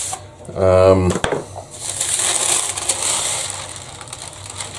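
A brief voice sound about a second in, then baking paper being pulled off its roll and spread out, a crisp papery rustling for a few seconds that fades near the end.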